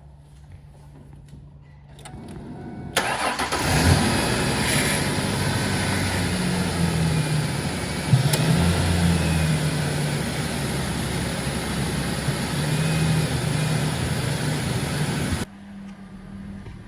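Ford Ranger pickup's engine starting a couple of seconds in and then running, with a little shifting in pitch. It is being run to check that the cooling system no longer overheats after the air was bled from the coolant. The loud running stops abruptly near the end, leaving a low hum.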